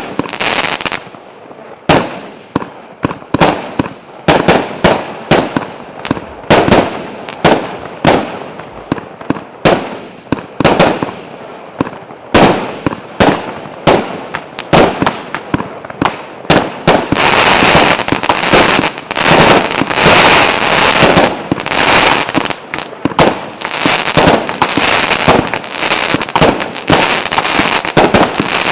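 An "Orange General" 100-shot firework cake firing: a run of sharp shot reports, about two or three a second. About two-thirds of the way through, the shots come thicker and merge into a continuous dense crackle.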